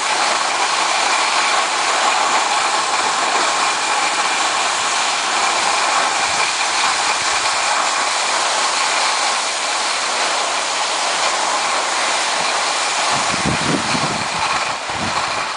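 Skis sliding over packed snow on a groomed run, a steady scraping hiss that barely changes, with a short low rumble near the end.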